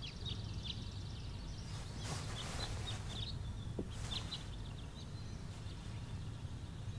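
Faint small birds chirping now and then in the background, short high chirps over a low steady hum of room ambience.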